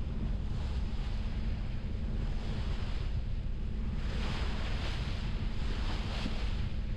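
Wind and waves heard aboard a sailboat under way, with wind rumbling on the microphone over a steady low hum. The rush of water swells up twice, about four and six seconds in.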